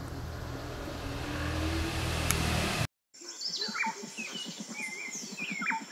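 Outdoor background noise with a steady low rumble, cut off abruptly about three seconds in. After a moment of silence, birds chirp over a fast, even low pulsing of about seven beats a second.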